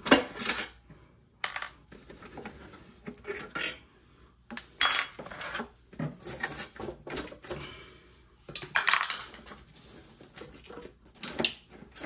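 Irregular clicks, knocks and clatters of plastic and metal as gloved hands work a refrigerator's condenser fan motor, its plastic shroud and metal mounting strap loose, with the loudest knock right at the start.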